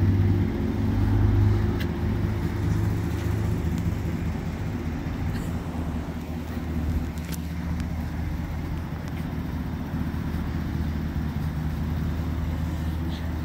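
Lifted Chevrolet pickup truck's engine idling with a steady low hum, a little louder about a second in.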